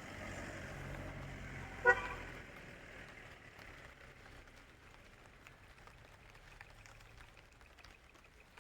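A vehicle horn gives one short toot about two seconds in, over a steady low engine rumble that slowly fades.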